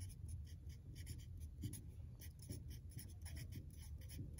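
Black Sharpie marker writing on paper: a quick run of short, faint pen strokes as letters are written.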